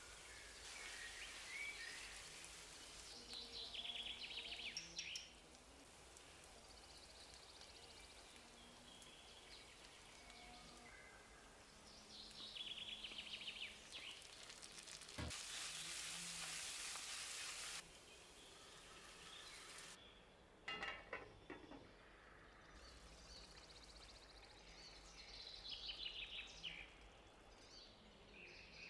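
Ground beef, onion and then bulgur frying quietly in a nonstick pan, with a low sizzle and repeated bouts of scraping as a wooden spatula stirs them.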